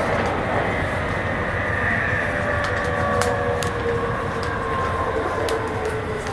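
Yokohama Minatomirai Railway Y500 series electric train running, heard from inside the carriage: a steady rumble of wheels on rail with the whine of its inverter-driven traction motors and occasional short clicks.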